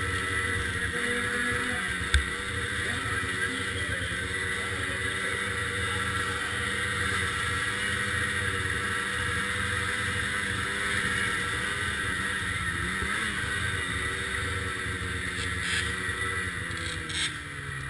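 Snowcross race snowmobile's engine running steadily at low speed, with a single sharp knock about two seconds in.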